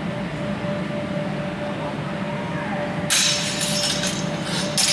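Longsword blades clashing and clattering together in a quick exchange of blows about three seconds in, with one more clash near the end, over a steady background hum.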